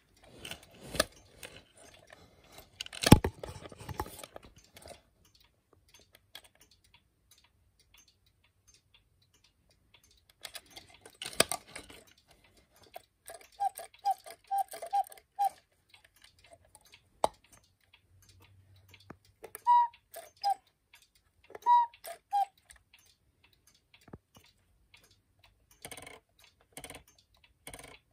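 German cuckoo clock's mechanical movement: clicks and a loud knock about three seconds in, a run of short whistle pips a little before the middle, then two two-note cuckoo calls, high then low, past the middle. The movement ticks steadily near the end.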